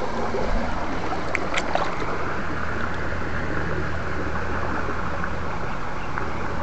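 Stream water running steadily among rocks, over a steady low hum, with a couple of faint clicks about one and a half seconds in.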